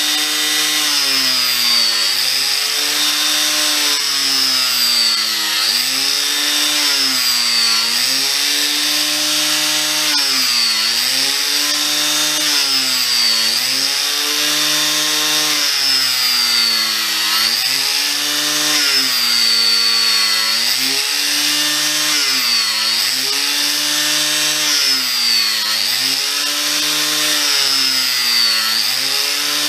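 Angle grinder mounted in a jig, grinding away the end of a solid French oak beam to round it. The motor runs continuously, its pitch sagging as the disc bites into the wood and picking up again, roughly every two to three seconds.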